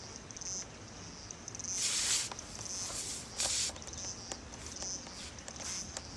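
A nail being worked out of a punctured tubeless car tyre with pliers, with short hisses about two and three and a half seconds in and faint high squeaks.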